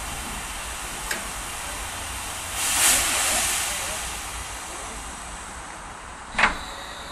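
Hudswell Clarke saddle-tank steam locomotive standing with steam hissing steadily, swelling into a louder rush of steam for about a second and a half a few seconds in, then easing off. Two sharp knocks are heard, a faint one about a second in and a loud one near the end.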